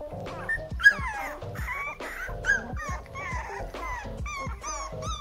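One-month-old bulldog puppies whimpering and yipping: high whines that slide up and down in pitch, turning near the end into a run of short, evenly repeated yelps.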